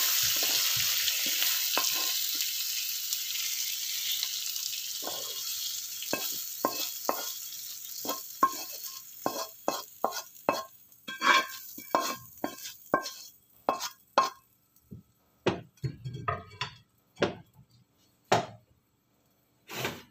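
Stir-fried bitter gourd sizzling in a black non-stick wok, the sizzle fading over the first several seconds as the food is scooped out with a wooden spatula. Then a long run of quick scrapes and knocks of the wooden spatula against the emptied wok.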